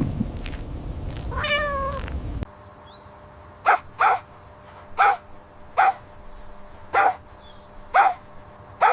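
A domestic cat meowing: one drawn-out, wavering meow over background noise. Then a run of short, sharp mews, about one a second, against a much quieter background.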